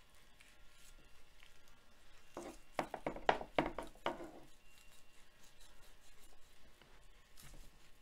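A small knife trimming silver skin and fat from a raw beef chuck eye roll on a plastic cutting board: a quick run of short cutting and tearing strokes a few seconds in, lasting about two seconds, with faint handling sounds around it.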